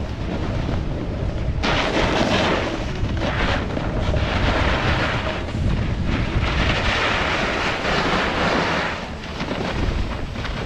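Snowboard edges scraping and carving over snow, swelling several times as the board turns, with rushing air buffeting the action camera's microphone.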